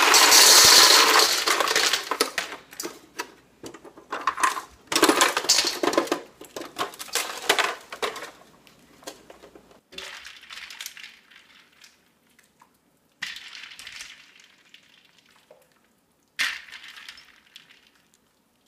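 Ice cubes poured from a plastic bag into a stainless steel mixing bowl, a loud rattling clatter, followed by more clinking of ice against the metal. Later come a few short, quieter clatters as blanched corn cobs are set into the ice bath with tongs.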